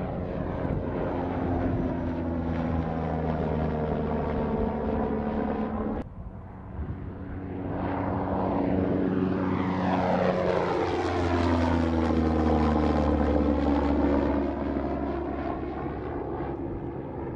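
MQ-9 Reaper drone flying overhead, its turboprop engine and pusher propeller giving a steady droning tone that falls slowly in pitch as it passes. The sound breaks off about six seconds in, then a second pass builds up and is loudest a few seconds later, its pitch sinking as the drone goes by.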